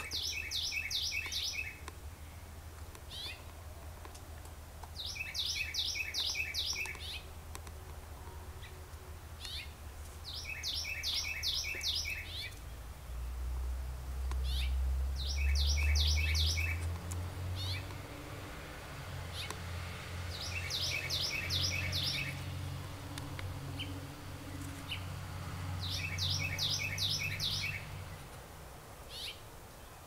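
A small bird calling: six short bouts of rapid, evenly repeated high chirps, one bout about every five seconds. A low rumble swells underneath in the middle.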